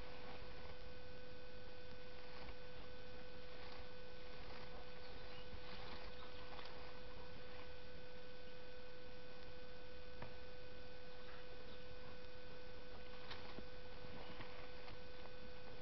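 German shepherd digging in loose soil with its front paws: faint, scattered scratches and bits of earth pattering, under a steady electrical hum.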